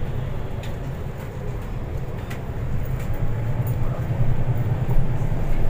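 Interior of a moving MAN NL323F Euro VI single-deck city bus: the diesel engine's steady low drone, growing louder from about halfway through, with faint cabin rattles and clicks.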